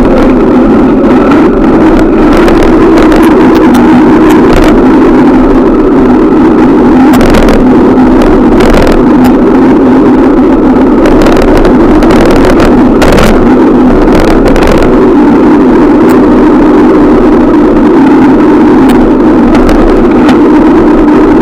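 Loud, steady road noise while riding: a constant drone over a rushing hiss, with scattered short rattles and clicks.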